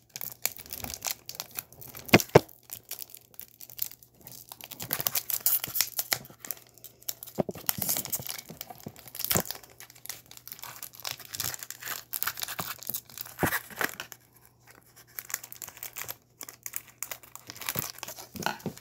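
Foil trading-card booster pack being torn open and crinkled by hand: irregular crackling and rustling with a few sharper, louder crackles.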